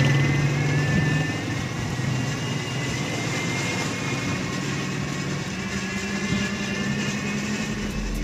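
Motor vehicle running with steady road noise, heard while riding through a street.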